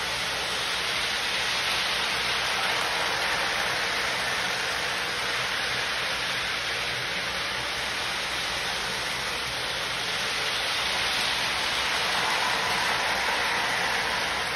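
Model trains running on the layout track: a steady rolling hiss and rumble that grows a little louder as a train passes close near the end.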